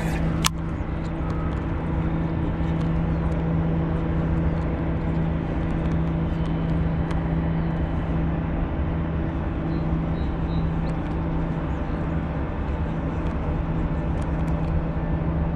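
An engine running steadily at a constant pitch, a low, even drone. A single sharp click comes about half a second in.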